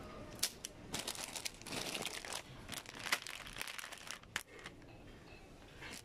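Plastic wrapping crinkling as a wrapped item is handled, in a dense irregular run of crackles that dies away after about four seconds.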